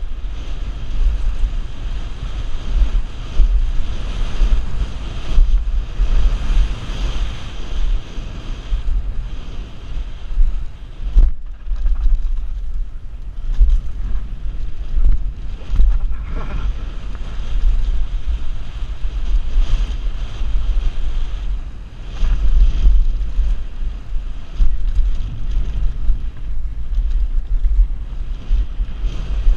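Wind buffeting the microphone of a camera riding down a downhill mountain-bike trail: a loud, uneven, gusting rumble of noise with a brief dip about eleven seconds in.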